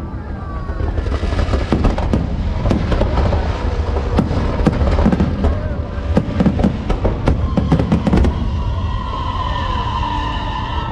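Aerial fireworks bursting in quick succession over a deep rumble, with bangs and crackles; show music plays beneath them, its tones clearer near the end.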